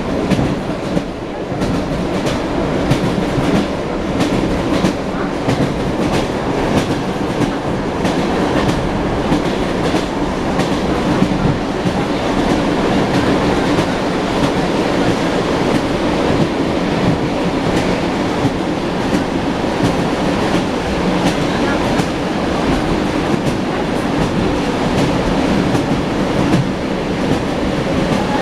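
Wheels of an ED9M electric multiple unit clattering over rail joints, heard from inside the carriage: repeated clacks over a steady running rumble.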